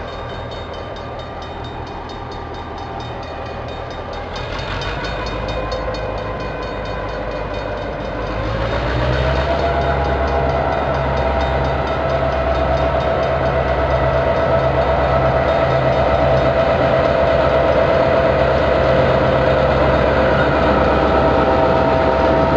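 A DBR class diesel locomotive's EMD 645 V8 engine running under power as the locomotive approaches and passes close by; about eight seconds in its note rises and it gets louder, then holds steady.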